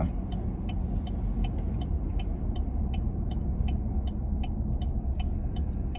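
Steady low road and drivetrain rumble inside the cab of a 2014 Chevrolet Silverado pickup while driving, a cab the occupants call quiet. A light, regular ticking runs over it about three times a second.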